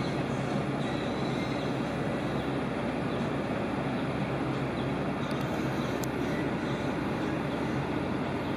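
Boeing 737-800's CFM56-7B jet engines at taxi idle, a steady, even rumble heard muffled through the terminal window glass.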